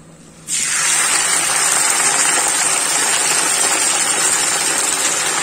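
Freshly washed white gongura (sorrel) leaves dropped into hot oil in a kadai, sizzling loudly. The sizzle starts suddenly about half a second in and holds steady; the water on the leaves is hitting the hot oil.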